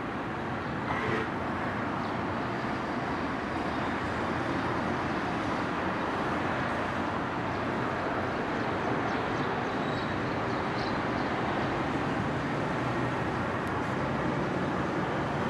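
Steady outdoor background noise, with a low hum that grows slightly louder near the end.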